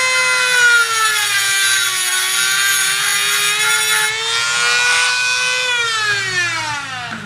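Dremel rotary tool with an abrasive cut-off wheel whining at high speed while grinding a screwdriver slot into a badge rivet's head; the pitch dips under the load of the cut, with a gritty grinding hiss over the whine. The grinding stops about four seconds in, the whine climbs back up, and from about six seconds the tool is switched off and winds down in a falling pitch.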